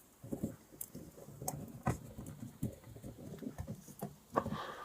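Scattered small clicks and taps of plastic toy vehicle figures being handled and set onto their display stands, with a low rustle of handling between them.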